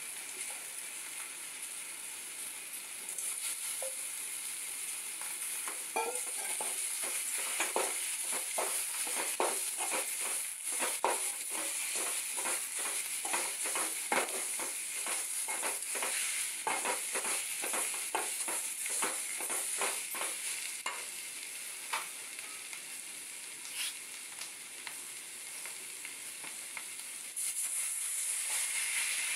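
Snail meat frying with masala in a metal pan, a steady sizzle throughout. A steel spatula scrapes and knocks against the pan in quick, repeated strokes through the middle. Near the end, water is poured in and the sound gets louder.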